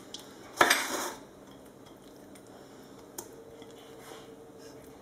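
Raw chicken pieces being put into a stainless steel pot with a little olive oil: one loud knock against the pot just over half a second in, then a small click a little after three seconds.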